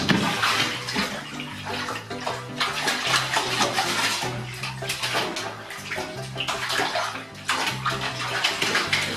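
Water running and splashing in a bathtub, an uneven rushing and sloshing with surges throughout.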